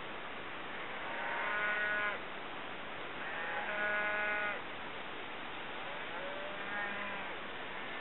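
A herd of cattle being moved, with cows mooing: three drawn-out moos, the second the loudest and the last fainter, over a steady hiss.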